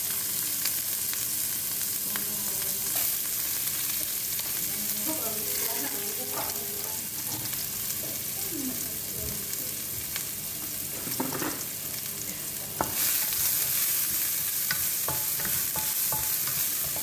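Food sizzling as it fries in a pan, with scattered light taps and scrapes of a utensil stirring it. The sizzle grows louder about thirteen seconds in.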